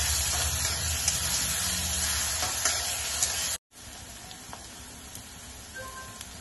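Chopped onions sizzling in hot oil in a metal kadhai while a spatula stirs them, with a few sharp clicks of the spatula against the pan. About three and a half seconds in, the sound cuts off briefly, and the frying goes on as a quieter, steady sizzle.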